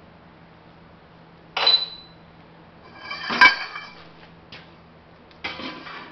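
Steel pipe clanking against other metal, ringing brightly: a short clank about one and a half seconds in, then a louder clank about three and a half seconds in that rings on several tones, followed by lighter rattling near the end.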